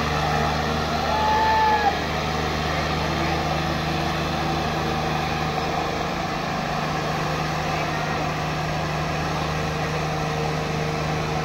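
John Deere 5310 diesel tractor engines running steadily under load as two tractors pull against each other in a tug-of-war.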